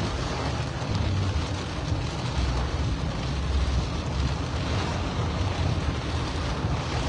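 Steady wind noise buffeting the microphone over a low rumble, as when recording on the move.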